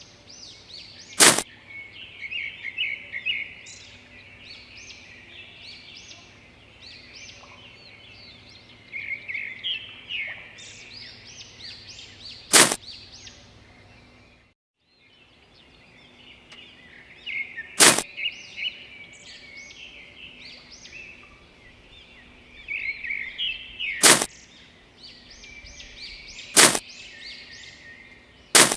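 Small birds chirping and twittering continuously, cut by six short, sharp swishes spaced several seconds apart, the loudest sounds here. The audio drops out for about a second halfway through.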